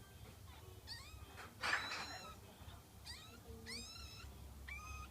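A ten-day-old kitten mewing: a series of short, high-pitched mews, each rising and falling in pitch, the loudest about a second and a half in.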